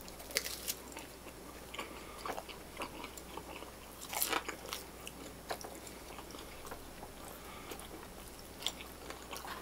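Biting and chewing a slice of pizza, with small crunches and mouth clicks throughout and a louder crunch about four seconds in as the crust is bitten.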